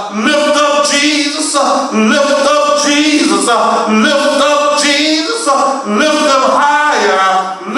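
A man singing a gospel song, holding long notes in phrases with short breaks between them.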